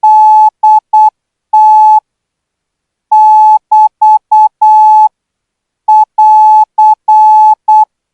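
Morse code practice tone: a single steady beep keyed on and off in short dots and long dashes, sent at 12 words per minute. It comes in three groups of characters with pauses of about a second between them.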